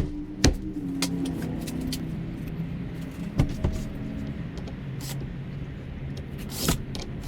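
A steady, low engine-like hum, with a few sharp knocks about half a second in, twice near the middle and once near the end.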